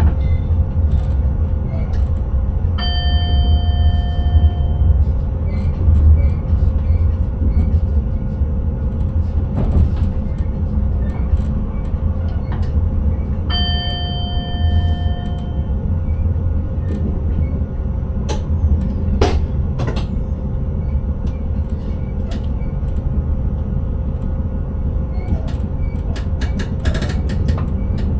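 Steady low rumble of an intercity train running on the line, heard from inside the driver's cab. Twice, a few seconds in and again about halfway through, a short electronic tone of several pitches sounds for about two seconds, and scattered light clicks and knocks come near the end.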